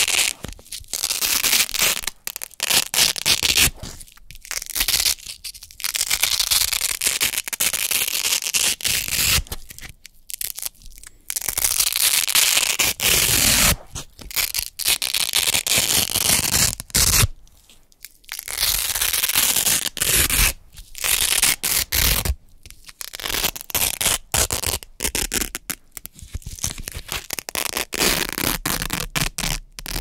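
Hook-and-loop (Velcro) pads peeled apart close to the microphone, over and over: crunchy, crackling rips, each lasting from about a second to several seconds, with short pauses between them.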